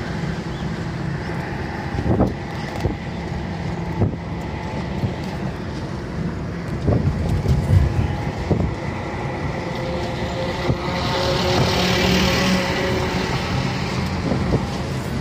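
Road and engine noise inside a moving Tata car's cabin: a steady low rumble from tyres and engine, broken by a few soft knocks. About three quarters of the way through, a hiss swells for a couple of seconds and fades.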